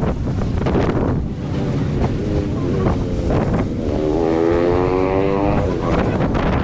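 Wind buffeting the microphone over a steady low rumble by the sea. About four seconds in, a held pitched sound lasts nearly two seconds.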